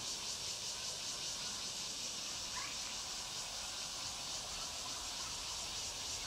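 Steady high-pitched drone of an insect chorus.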